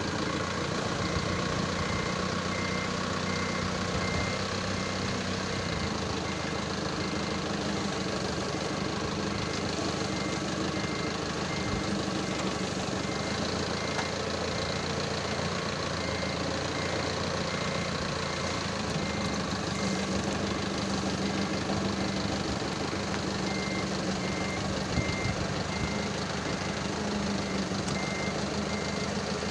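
Large vehicle engine running steadily, with a reversing alarm beeping in a rapid regular pulse during the first third and again near the end.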